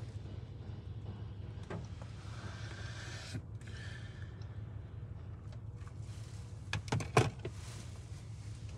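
Belanger Saber touchless car wash heard from inside the car's cabin: a steady low hum with spray hiss, the hiss cutting off suddenly about three and a half seconds in. A few sharp knocks about seven seconds in are the loudest sounds.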